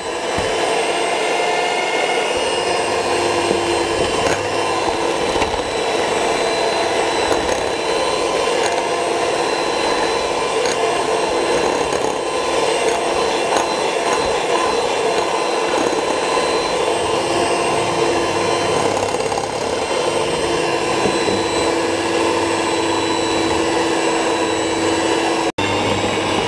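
Electric hand mixer running steadily at one speed, its beaters whisking eggs and sugar in a glass bowl until lightly fluffy. The steady hum breaks off for a split second near the end.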